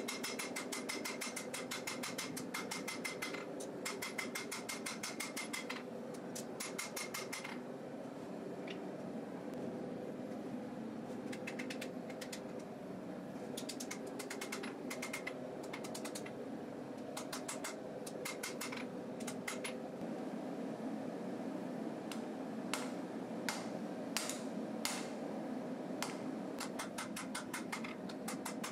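Hand hammer striking a red-hot knife blade, forged from an old rasp, on an anvil: quick runs of blows with pauses between, some ringing, then fewer single blows near the end. A steady hum runs underneath.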